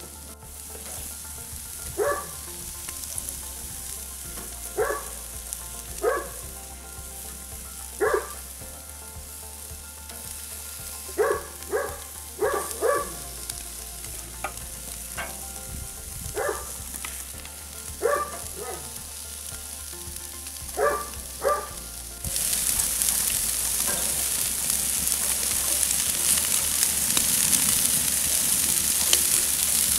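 Lamb chops sizzling on a grill grate over hot charcoal, a steady hissing that turns louder about two-thirds of the way through. About a dozen short single barks, like a dog's, stand out over it in the first two-thirds.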